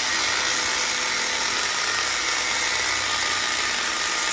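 Angle grinder with a cut-off disc cutting into the steel shell of an LG hermetic compressor, running steadily under load as it grinds through the metal.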